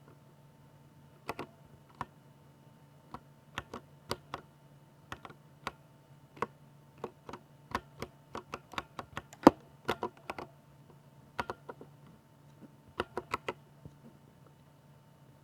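Typing on a Ducky 60% mechanical keyboard with silver switches: irregular key clacks in short runs with brief pauses, one strike much louder than the rest about two thirds of the way in.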